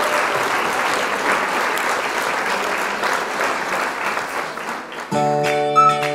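Crowd applauding, then about five seconds in background music starts with held chords and a melody on top.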